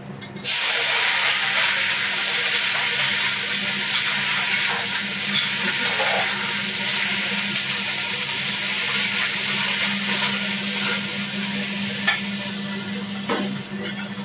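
Food tipped from a bowl into hot oil in a wok sets off a loud sizzle about half a second in, which carries on steadily as it is stirred. A couple of knocks come near the end.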